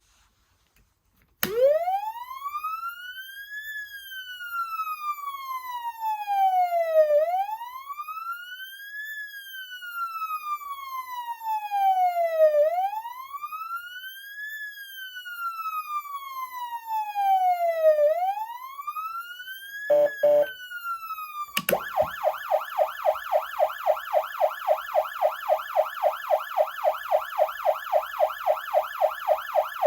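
Gall's Model 3050 electronic siren amplifier sounding the wail tone, a slow rise and fall repeating about every five and a half seconds, starting about a second and a half in. Around twenty seconds in it stutters briefly, then switches to the fast yelp tone.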